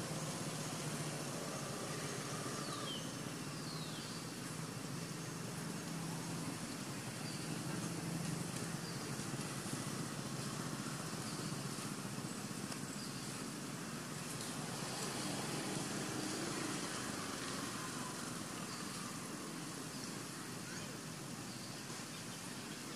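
Steady outdoor background noise of distant road traffic with faint voices, and a couple of faint, high, falling calls about three seconds in.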